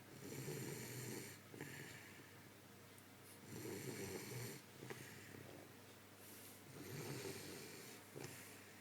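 Slow, regular snoring: three snores about three seconds apart, each lasting about a second.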